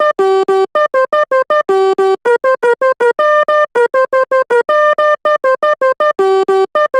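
Sampled Basuri telolet bus horn playing a quick staccato melody. Short, bright horn notes come about four a second, with a few longer ones, and jump between a handful of pitches.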